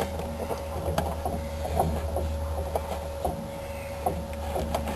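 Small scattered clicks and scrapes of the rubber upper shock-mount bushing being pried out, over a steady low hum.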